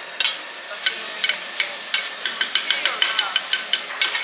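Metal spatulas striking and scraping a hot iron griddle over a steady sizzle: a few scattered clinks at first, then a fast run of ringing taps, about five a second, from about two seconds in.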